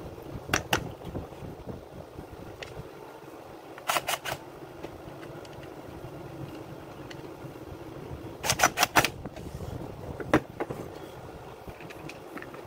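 Handling noise from reassembling a Makita UC4551A electric chainsaw: sharp clicks and knocks of its plastic and metal housing parts being set down and fitted. There are two clicks near the start, three quick ones about four seconds in, a rapid run of clicks around nine seconds and one more knock after, over a steady low hum.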